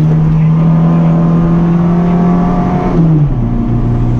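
Competition car's engine heard from inside the cockpit, pulling hard at a steady high pitch, then dropping to a lower pitch about three seconds in.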